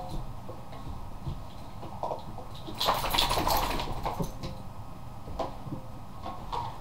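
Two boxer dogs playing and scuffling on a carpeted floor: scattered knocks and scrapes, with a louder burst of rustling about three seconds in, over a steady low hum.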